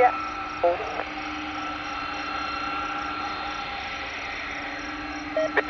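Airbus A300-600 freighter's Pratt & Whitney turbofans running at taxi power on the runway: a steady jet whine and rush with a few unchanging high tones.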